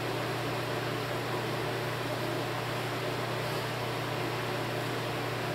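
Steady room noise: a constant low hum under an even hiss, with no changes or separate sounds.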